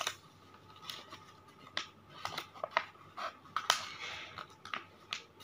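Paper crinkling and crackling in short, sharp, irregular crackles as hands pull a folded paper boat open and press it flat, the loudest crackle about two-thirds of the way through.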